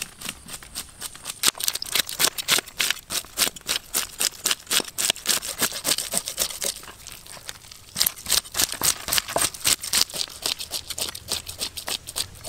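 A knife scraping the scales off a whole fish in quick, rapid strokes, several a second, with a short break a little past the middle.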